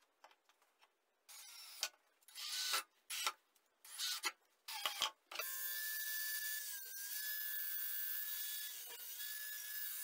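Angle grinder with a cutting disc cutting through a refrigerator compressor's copper tubes. There are several short bursts in the first half, then about five seconds of steady running with a high whine.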